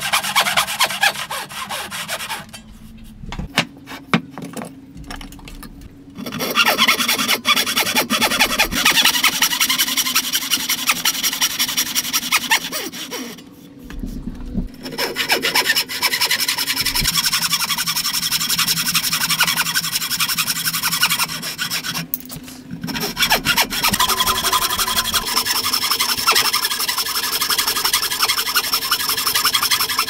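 Handsaw cutting by hand into a squared timber post: a fast, steady rasp of saw strokes through the wood, broken by a few short pauses.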